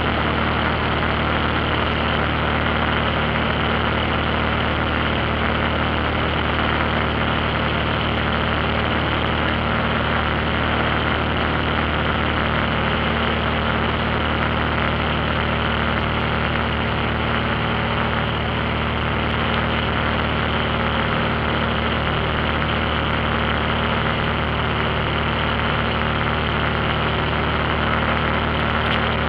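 Light airplane's engine running steadily in flight, heard from inside the cabin as a constant drone.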